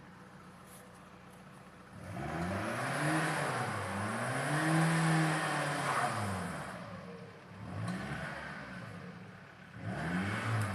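A motor vehicle engine revved hard several times, its pitch climbing and falling in repeated surges, the longest held high about halfway through. It starts after about two seconds of low background hum.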